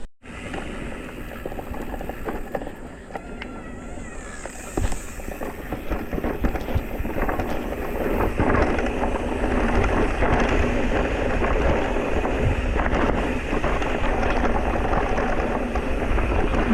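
Electric mountain bike riding over rough ground: the tyres crunching over stones and roots and the bike clattering with many small knocks, growing louder about halfway through.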